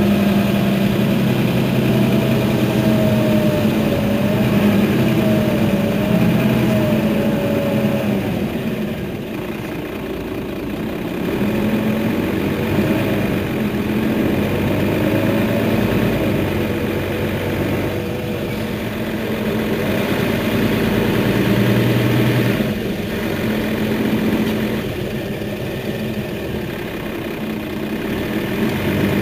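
Mercedes-Benz Citaro facelift city bus's engine idling steadily while the bus stands still, with a faint wavering whine above it at times.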